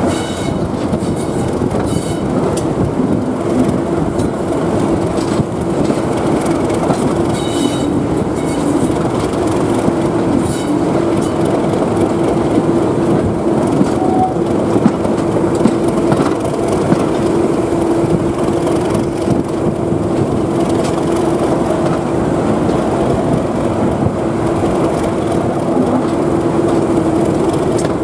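Class 37 diesel locomotive 37263 running as it hauls the train at low speed, heard from an open window just behind it: a steady engine note with a held tone that sets in a few seconds in, over continuous wheel-on-rail noise, with a few short high squeaks in the first half.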